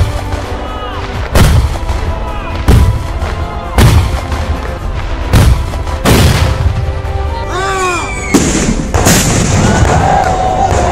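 Meriam talang pipe cannons firing one after another: about eight heavy booms at uneven intervals, each with a low rumble trailing after it.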